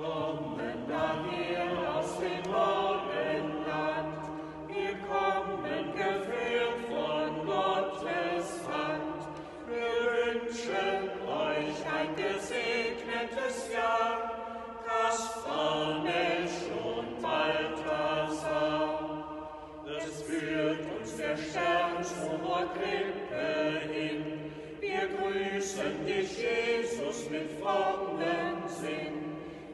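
A small group of Sternsinger, adult star singers, singing a song together from song sheets.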